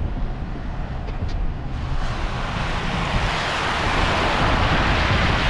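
Tyres of a pickup truck ploughing through standing floodwater on a street: a rushing splash of water that swells about two seconds in and stays loud, over the low rumble of the truck.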